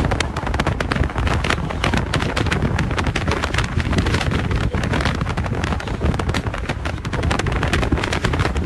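Steady, dense outdoor rumble with constant crackling, picked up by an eyewitness's smartphone microphone while filming.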